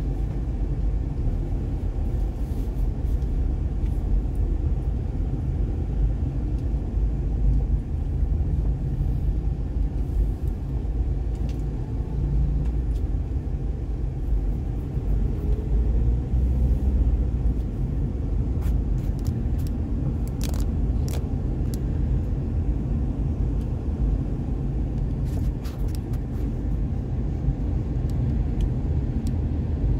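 Steady low rumble of a vehicle moving through city traffic, from road and engine noise, with a few faint clicks about two-thirds of the way through.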